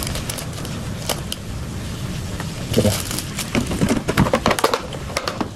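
Plastic instant-coffee sachet crinkling and crackling as it is torn open and emptied by hand, in a rapid run of sharp crackles and clicks that is densest about three seconds in, over a steady low hum.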